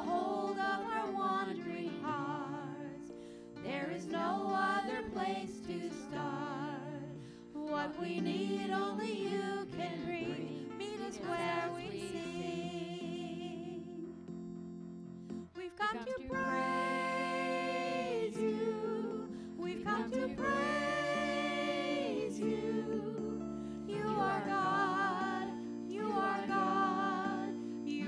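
Worship team singing a praise song in several voices over sustained instrumental accompaniment, with long held, wavering notes in the middle phrases.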